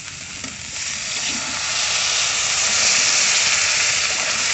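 Water poured into a kadhai of masala frying in hot mustard oil, hitting the oil with a loud steamy hiss that builds from about a second in and stays strong.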